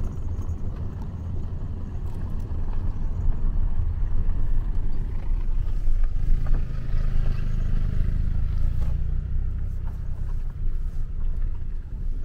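A car driving: a steady low rumble of engine and tyres, with a deeper engine hum that swells about halfway through and eases off a few seconds later.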